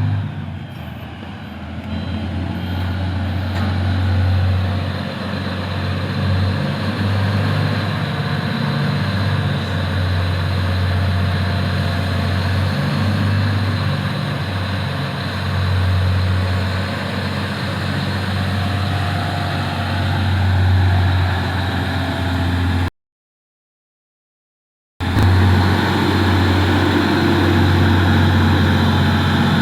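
Heavy diesel engine of construction machinery running steadily with a low drone. The sound cuts out completely for about two seconds late on, then resumes.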